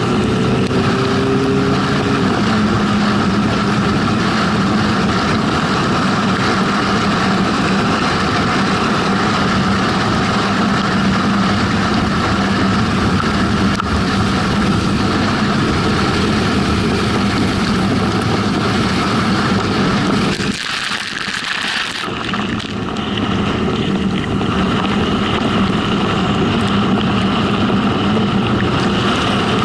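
Vehicle driving on a wet road: steady engine and road noise with wind rushing over the microphone. The engine note climbs slightly in the first two seconds, and about two-thirds of the way in the low rumble drops away for a second or so.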